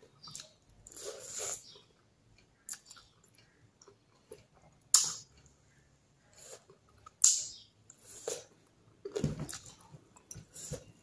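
Close-up chewing and mouth sounds of a person eating a rice-and-curry meal, coming in short bursts with a few sharp clicks; the loudest clicks fall about five and seven seconds in.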